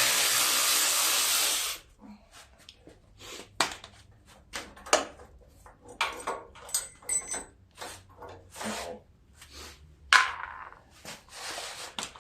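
A power tool runs steadily for about the first two seconds, backing out a 10 mm bolt holding the mower engine's oil cooler, then stops. After that come irregular clinks, knocks and rubbing as the loosened parts are handled and pulled free.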